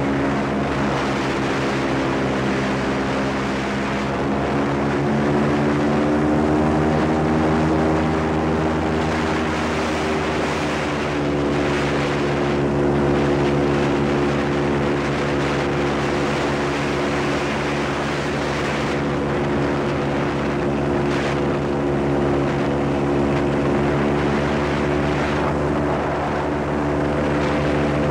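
Airboat's engine and large air propeller running at speed: a loud, steady drone whose pitch drifts up and down a little.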